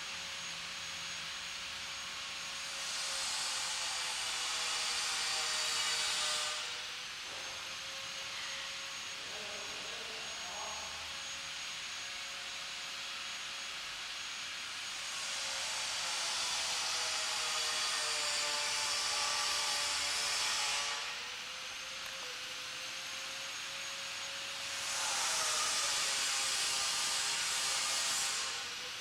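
A power tool's motor running at a steady high whine, with three long stretches of hissing as it is worked against the bus body panels; the pitch sags slightly under the load.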